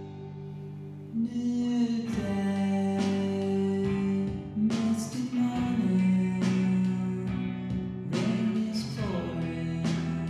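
Slow plucked guitar music, single notes ringing out and growing fuller about a second in, with a few notes bending in pitch.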